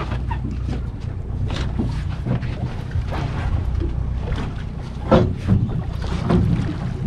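Boat engine idling steadily at sea, with wind buffeting the microphone and water washing along the hull. A few louder, sharper sounds come about five and six seconds in.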